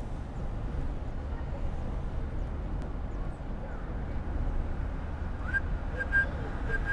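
Steady low background rumble of ambient noise. Near the end, short high whistled or flute-like notes begin to come in as the film's music starts.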